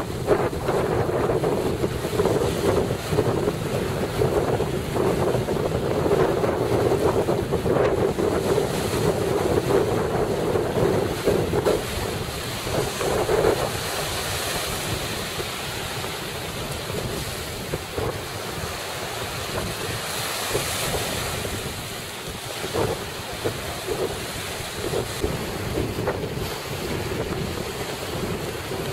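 Wind buffeting the microphone over the wash of waves, with a steady low hum for the first dozen seconds that fades out and returns near the end.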